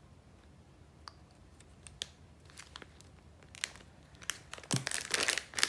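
Scattered light clicks, then packaging crinkling more steadily near the end as a dual USB voltmeter charger and its wiring are handled.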